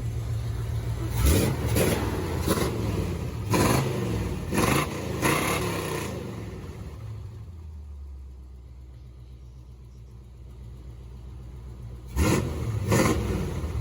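1985 Chevrolet C10 pickup's engine idling with a series of quick throttle blips in the first six seconds. It settles to a quieter, steady idle, then is blipped twice more near the end. It is running smoother after the treatment.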